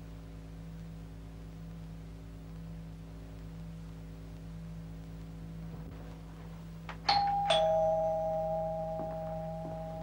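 Two-tone ding-dong doorbell chime about seven seconds in: a higher note, then a lower one half a second later, both ringing on and fading slowly. A steady electrical hum lies under it throughout.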